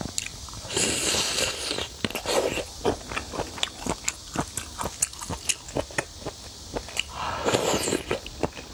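Close-miked eating of octopus pieces: a steady run of short, sharp biting and chewing clicks, with two longer noisy stretches, about a second in and near the end.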